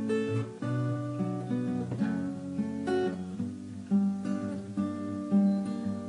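Background music: strummed acoustic guitar chords, with no singing.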